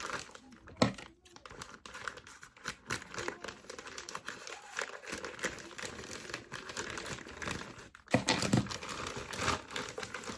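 Packing material being torn and crumpled by hand as a parcel is unwrapped: steady crinkling and rustling with a sharp rip about a second in and a louder burst of tearing near the end.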